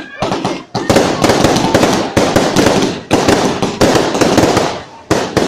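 Aerial fireworks going off: a quick run of sharp bangs and dense crackling as shells burst overhead, with a short lull near the end and then a few more bangs.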